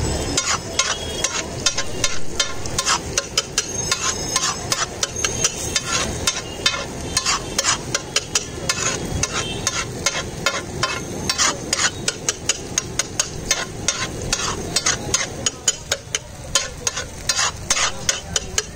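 Metal spatula striking and scraping on a hot tawa griddle, irregularly at about three strikes a second, over the sizzle of food frying in oil.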